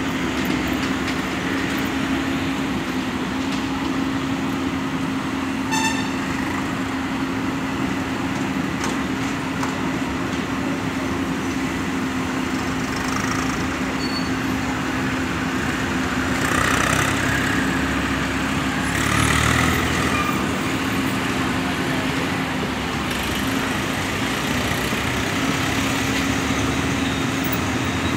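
Komatsu PC130 hydraulic excavator's diesel engine running steadily, swelling louder twice about two-thirds of the way through. A brief high beep sounds about six seconds in.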